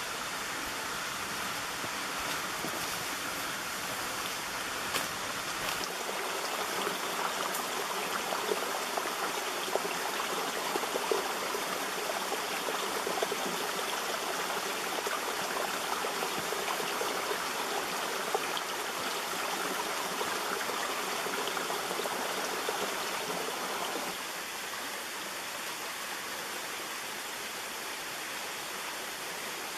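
Small rocky forest stream running, a steady rush of water that grows louder a few seconds in and drops back suddenly near the end.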